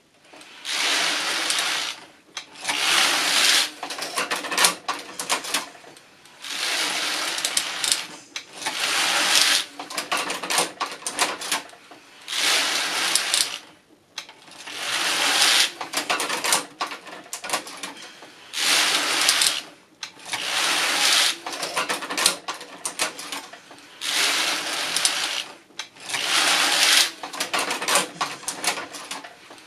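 Passap E6000 knitting machine knitting: the lock is pushed by hand back and forth across the front and rear needle beds, its needles and pushers clattering in one pass about every two seconds, with short pauses at the ends of the rows.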